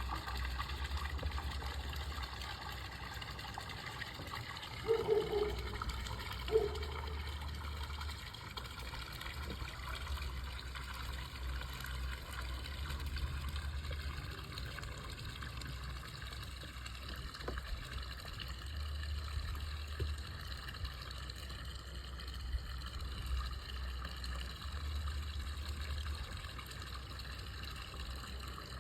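Water trickling and gurgling steadily, over a patchy low rumble, with two brief louder sounds about five and six and a half seconds in.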